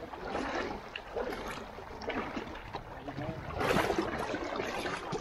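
Water lapping and sloshing around an inflatable raft, swelling louder for about a second near the end.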